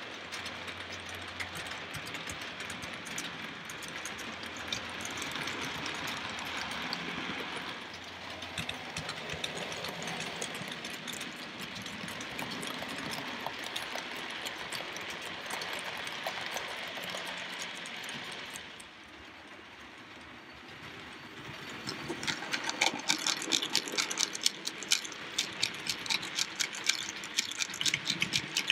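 OO gauge model freight train running on the track: a steady whirring rumble of wheels and motor that dips quieter about two-thirds of the way through, then a fast clicking rattle of wagon wheels on the rails as wagons pass close by.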